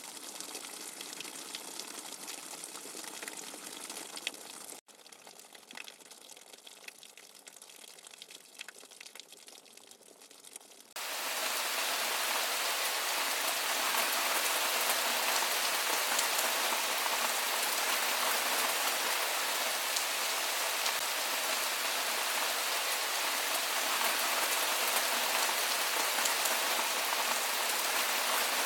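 A patter of falling water drops that cuts abruptly about five seconds in to a quieter patter. About eleven seconds in, a loud, even, rain-like white-noise hiss starts suddenly and holds steady.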